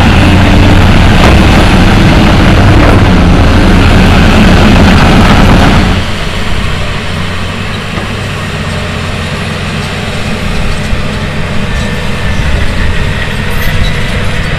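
John Deere 850K crawler dozer's diesel engine running as it pushes dirt. About six seconds in, the sound abruptly drops and changes.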